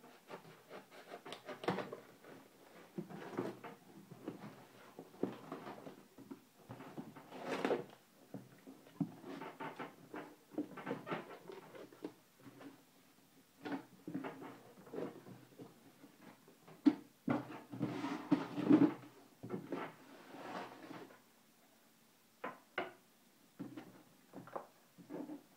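Cardboard box being opened by hand: packing tape pulled off and the flaps bent back, with rustling, scraping and knocks of cardboard in irregular bursts, the loudest about two-thirds of the way through.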